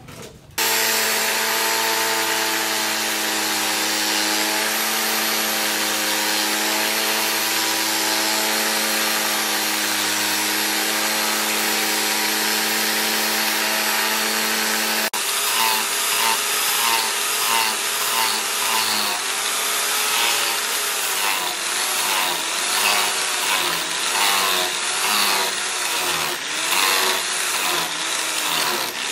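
An electric power tool's motor running with a steady hum and hiss. About halfway through, the sound changes abruptly, and its pitch and loudness then rise and fall over and over as the tool is pressed against the work in repeated grinding or sanding passes.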